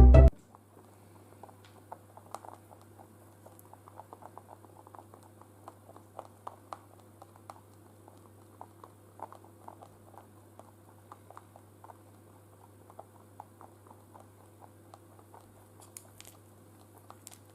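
Faint, irregular small taps and scratches from baby rabbits moving about, over a low steady hum.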